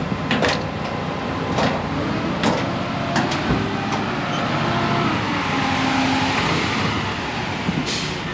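Heavy construction machinery working: an engine running steadily, its pitch shifting up and down partway through, with several sharp metallic knocks.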